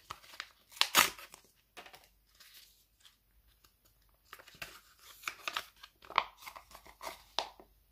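Sheet-mask sachet crinkling in the hands and being torn open: a series of short crackly rips and rustles, loudest about a second in, with a cluster more in the last few seconds.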